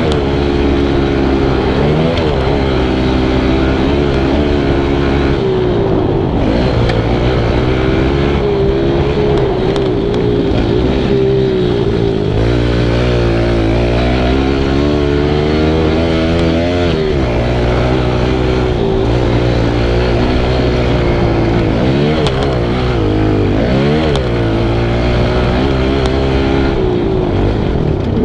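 Kawasaki KLX110's small four-stroke single-cylinder engine running hard under a rider. Its pitch climbs and drops every few seconds as the throttle is worked around the track.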